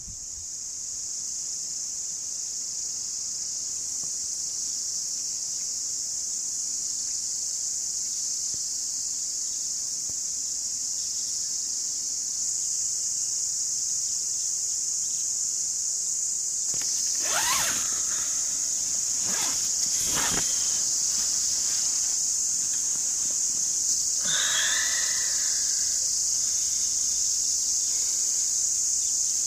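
Steady, high-pitched chorus of night insects, crickets. A few brief sharp sounds come about two-thirds of the way through, followed by a short call.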